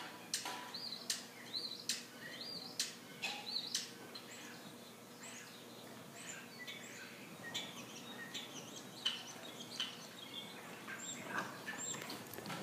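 Small birds chirping in short, repeated arching chirps, about one every second early on, then more scattered. Sharp clicks and knocks are mixed in and make the loudest moments.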